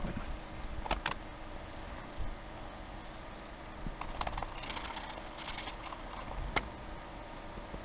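A damp cleaning cloth rubbing over a plastic radio case, with a few light clicks and knocks as the case is handled.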